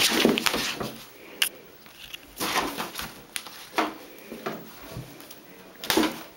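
Two cats scuffling in a bathtub: irregular bursts of rustling, scratching and knocking against the tub and the clear plastic shower curtain, about half a dozen in all, the biggest near the start and near the end.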